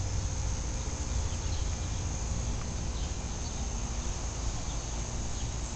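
Insects trilling steadily, an even high-pitched drone with a low rumble underneath.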